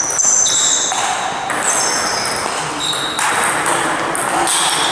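Table tennis rally in a gym hall: the ball is hit back and forth, with high-pitched squeaks that start and stop every second or so.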